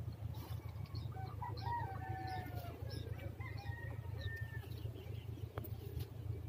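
A rooster crowing, a drawn-out pitched call lasting a few seconds, over a steady low rumble.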